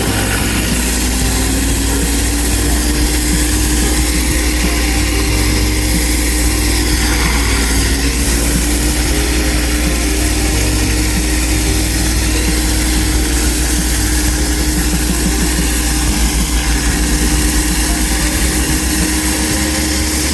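Pressure washer running steadily: a constant engine-and-pump hum that rises slightly in pitch over the first few seconds and then holds, under a steady hiss of spraying water.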